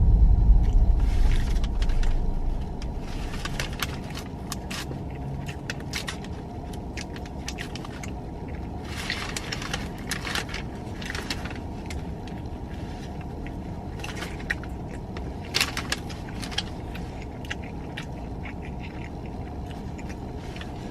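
Steady low rumble of a car interior, louder for the first couple of seconds, with scattered rustling and clicking, like food wrappers being handled.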